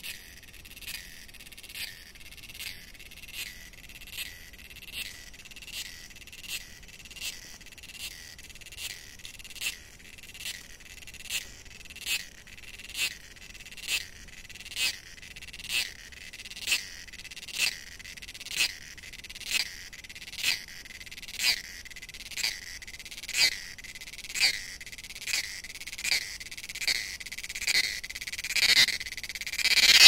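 A male cicada singing: a steady high-pitched buzz broken by a sharper pulse about once a second. The pulses grow louder and come faster near the end.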